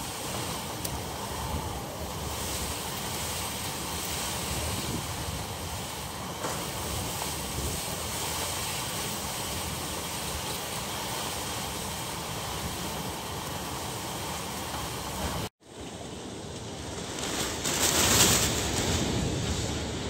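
Typhoon wind and rain: a steady rushing noise. After a brief cut about three-quarters of the way in, a stronger gust swells up and dies back.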